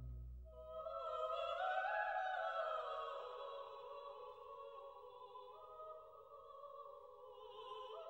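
Closing music: an operatic voice holding long notes with a wavering vibrato, starting about half a second in.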